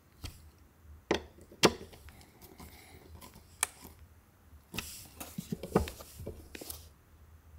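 Hand screwdriver driving a screw into a metal concealed cabinet hinge on a kitchen door: scattered sharp clicks and taps, then a denser run of small clicks and knocks from about five to seven seconds in.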